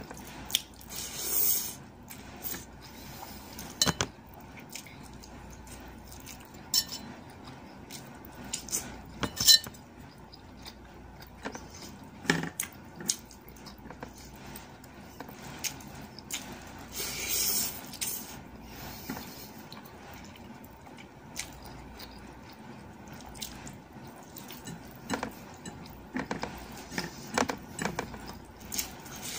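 Eating at a table: scattered clinks and taps on a bowl as food is picked from it by hand, with a couple of brief hissy sounds.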